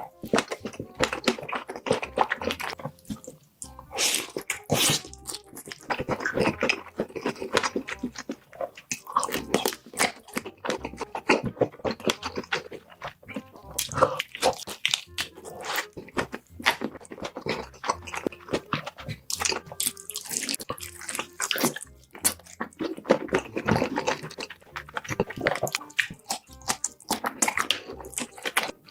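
Close-miked eating of sausages: a rapid, irregular run of wet chewing and biting clicks and crunches, over background music.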